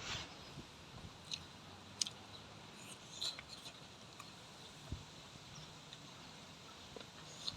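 Quiet eating sounds: chewing, with a few faint, sharp clicks and smacks spaced a second or so apart.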